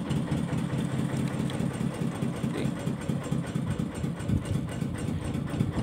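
An engine on a small fishing boat running steadily at an even low hum, with no change in speed.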